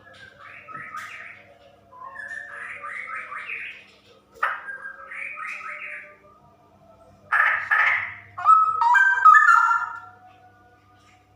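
Female straw-headed bulbul (cucak rowo) calling in short bursts of rapid, stuttering notes, the fast rolling chatter bird keepers call 'ropel'. There are five phrases, and the loudest come in the second half.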